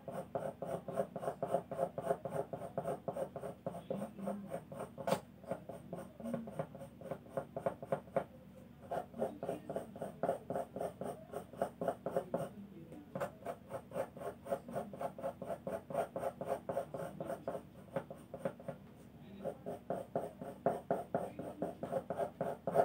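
Graphite pencil scratching across drawing paper in rapid short strokes, several a second, while sketching hair, stopping briefly a few times.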